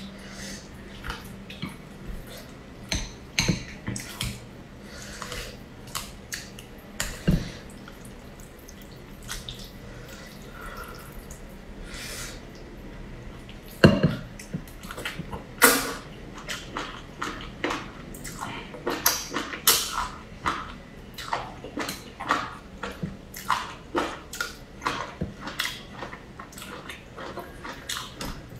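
Wet chewing and slurping of kelp strands and noodles, with many short irregular mouth smacks and clicks. A louder clack comes about fourteen seconds in.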